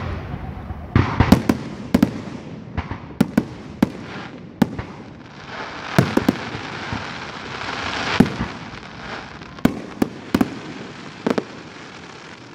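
Aerial fireworks shells bursting, well over a dozen sharp bangs at irregular intervals, some in quick doubles and triples. A dense hissing, crackling stretch runs from about five to eight seconds in.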